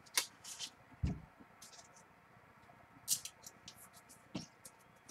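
Trading cards being handled: a few short scrapes and light taps, with a low thump about a second in.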